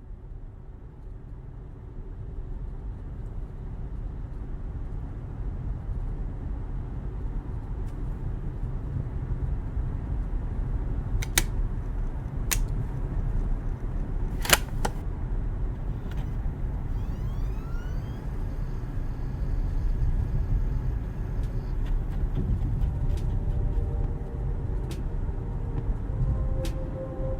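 Low, steady rumble of a car driving, fading in over the first few seconds, with a few sharp clicks partway through. Steady tones come in near the end.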